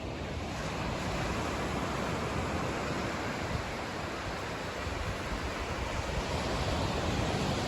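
Ocean surf: a steady rush of waves washing in, slowly building in loudness.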